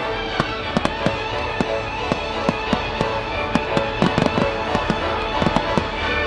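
Fireworks shells bursting in quick, irregular bangs, about two or three a second, with a tight cluster of several about four seconds in. Music plays steadily underneath, as in a pyromusical show.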